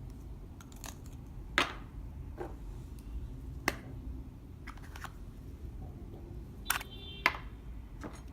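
Clear slime being handled and stretched, giving short sharp clicks and pops over a low steady hum. The loudest pops come about a second and a half in, near the middle, and twice close together near the end.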